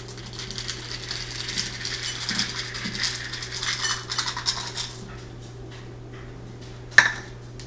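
Kitchen utensils clattering and scraping against a dish in a quick run of small clicks for about five seconds, then a single sharp knock near the end.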